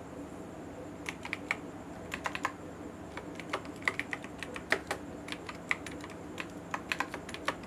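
Typing on a computer keyboard: irregular keystroke clicks that start about a second in and come in quick runs with short pauses, as a couple of words are typed.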